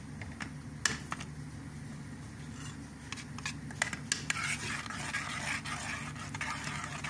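A metal spoon stirring a thick cream sauce in a stainless-steel pot, clicking against the pot and scraping its bottom, faster and denser from about halfway through, over a steady low hum.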